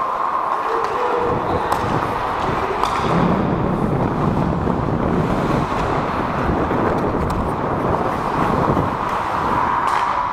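Ice hockey play heard from a referee's helmet-mounted camera: a steady rush of wind and skating noise on the microphone, with a few sharp clicks from the play.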